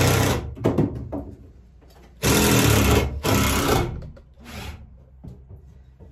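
Electric drill/driver running in short bursts of under a second each: one at the start, two close together about two seconds in and a short one near four and a half seconds.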